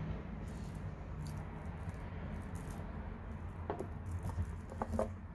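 Lapis bead mala necklace being handled and laid into a jewelry box: soft rattling and clicking of beads, with a few sharper clicks near the end.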